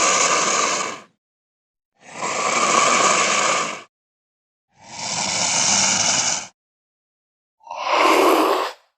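Mountain lion calls: a series of harsh, noisy calls, each one to two seconds long, with clean silence between them. The last call is shorter than the others.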